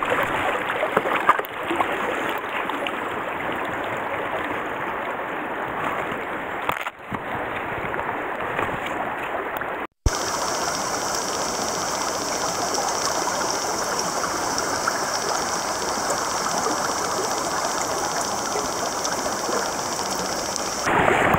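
Shallow stream water flowing and rippling over stones, a steady rushing. The sound cuts out for a moment about halfway through, then goes on with more hiss.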